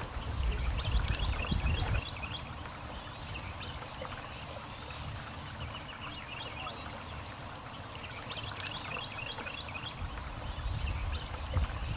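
Songbirds singing, short chirping phrases every couple of seconds, over a low outdoor rumble that is stronger in the first two seconds and again near the end.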